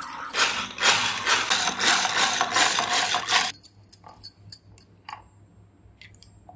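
Hand whisk beating flour into crepe batter in a ceramic bowl: a fast, steady run of whisking strokes against the bowl for about three seconds. It stops abruptly, and a few soft, separate taps of a spoon in the batter follow.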